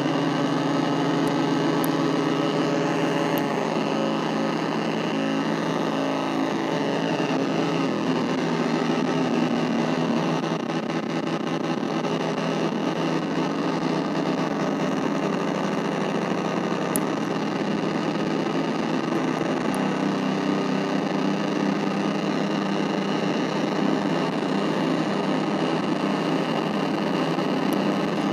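Casper Electronics Nova Drone analog synthesizer playing a dense, unbroken drone of many stacked tones over noise, its low tones shifting about ten seconds in.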